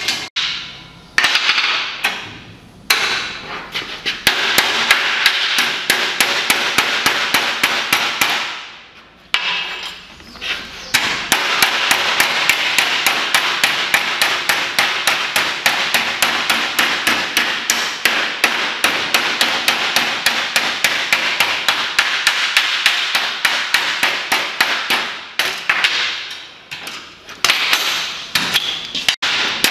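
Metalworking hammer striking a strip of sheet steel in rapid, steady runs of blows, folding its edge over a steel bench edge, with a few short pauses between runs.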